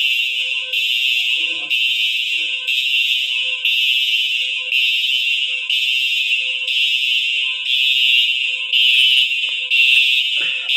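Fire alarm sounder going off during a test of the building's fire alarm system: a loud, high-pitched tone that repeats about once a second with short breaks.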